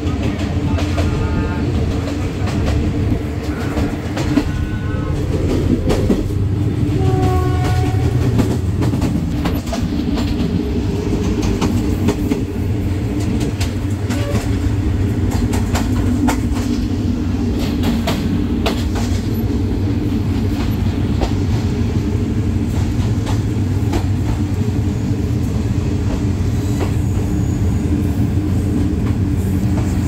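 The locomotive's twin Cummins LTA50L V16 diesel engines running steadily with a deep drone while pulling the train, heard close up from the coach behind it. Wheels click over rail joints, most often in the middle of the stretch.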